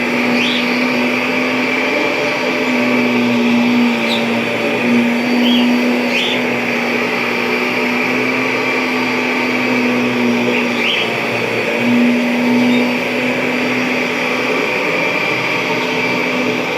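A 1997 Kirby G5 upright vacuum running steadily, a motor hum with a strong steady tone, with occasional short high chirps.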